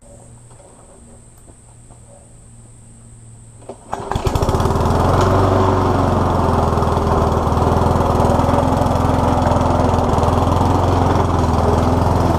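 Flathead single-cylinder four-stroke Briggs and Stratton 9G900-series engine on a rotary lawnmower, freshly serviced, starting up about four seconds in and then running steadily at mowing speed. Before it starts there is only a faint steady hum.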